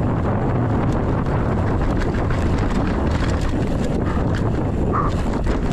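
Wind buffeting a handlebar-mounted action camera's microphone while a mountain bike rolls over a packed-dirt trail, a steady rumble with light clicks and rattles from the bike.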